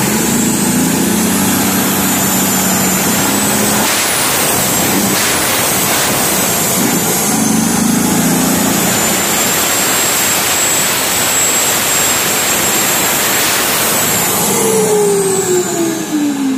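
Turbocharged diesel truck engine, with a newly fitted turbocharger, revved hard and held at high revs. A shrill turbo whistle climbs over the first few seconds, holds, then falls away near the end as the revs drop.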